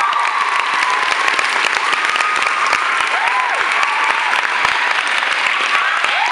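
A large audience applauding steadily, with drawn-out high-pitched cheers rising and falling over the clapping several times.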